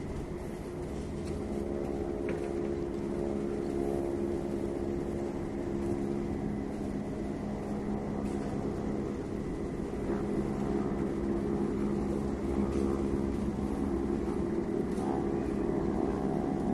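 Motorboat engine running steadily as a boat passes on the river, its hum growing a little louder over the first few seconds and again about ten seconds in.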